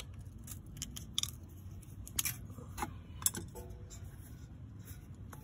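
Scattered light clicks and scrapes of a small screwdriver working at the plastic retaining clip on a transmission cooler line, about half a dozen irregular clicks over a low steady hum.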